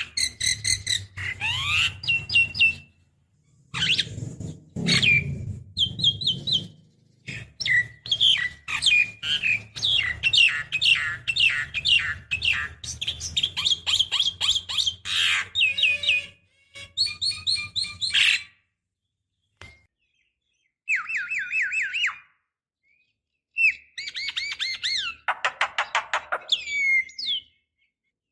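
Javan myna singing in full voice: fast runs of repeated chattering notes, sliding whistles and harsh squawks, broken by a couple of short pauses in the second half.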